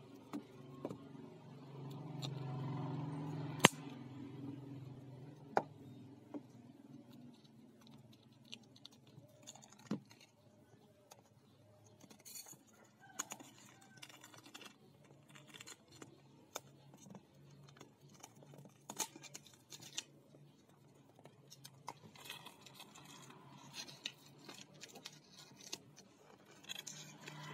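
Thin plastic shrink wrap being torn and peeled off a paperback book. It crinkles and rustles in short irregular bursts, with handling taps against the book and tiled floor. The loudest sound is one sharp click a little under four seconds in.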